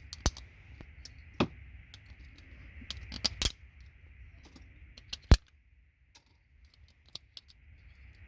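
Hard plastic clicking and snapping as the shields and housings of RJ45 ethernet jacks are pried and bent off by hand to free the gold-plated pins. About five sharp snaps stand out among lighter ticks.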